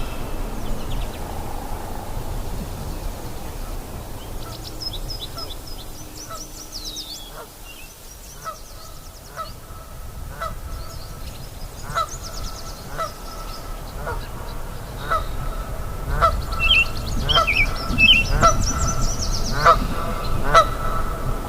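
A chorus of animal calls by a river: short honk-like calls repeated about once a second, coming faster toward the end, answered by higher trilling bird calls, over the low rush of the stream.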